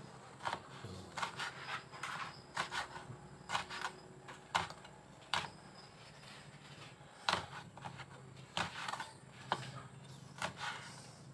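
Cleaver chopping bird's eye chilies on a cutting board: irregular sharp knocks of the blade striking the board, one or two a second, some in quick pairs, with a short pause midway.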